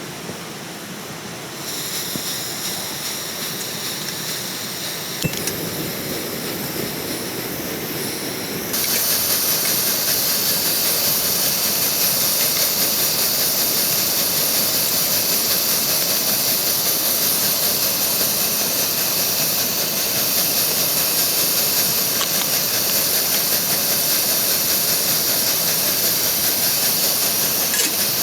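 A steady hissing rush that gets louder in two sudden steps, about two seconds in and again about nine seconds in, then holds level.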